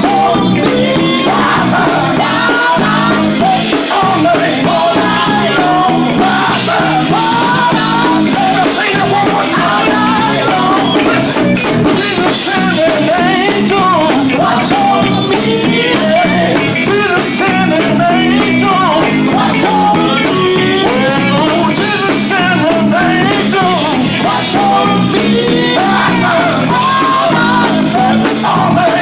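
Live gospel song: voices singing a winding melody over a full band with drums, loud and steady throughout.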